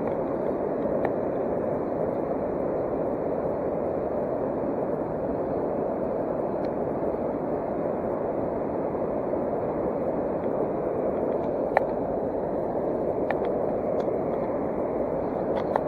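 Steady rush of flowing stream water, with a few faint ticks.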